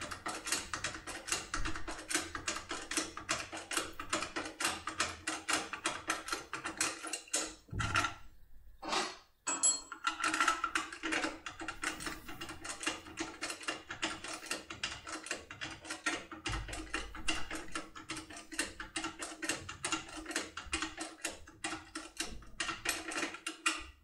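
Fast, irregular metal clicking of self-impression magic key tools being worked in a 6+6 lever lock: the tools' pins tick against the steel levers as the lock is worked through its first two turns. There is a short break in the clicking about eight seconds in.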